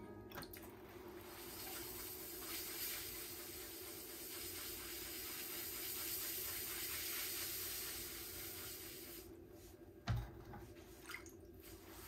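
Water running steadily from a tap, cutting off about three seconds before the end, followed by a single sharp thump. A steady low hum runs underneath throughout.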